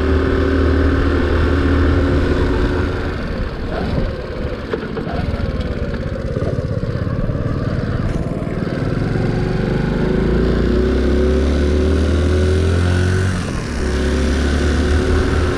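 Honda C90 step-through motorcycle, fitted with a Lifan 110cc single-cylinder engine, running on the move. The engine note drops as it slows a few seconds in, climbs again from about nine seconds, dips briefly near the end, then holds steady.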